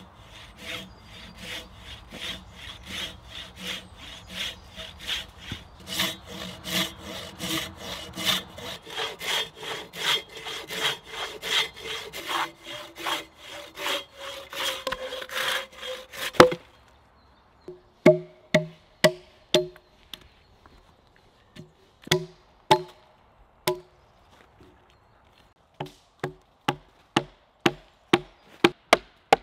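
A coarse-toothed hand saw cutting through a log in quick, even strokes, about three a second, growing louder and ending in a sharp crack as the cut goes through about 16 seconds in. After a pause, a mallet knocks a pointed wooden stake into the log: short runs of sharp, ringing wooden knocks, then a steady beat of about two a second near the end.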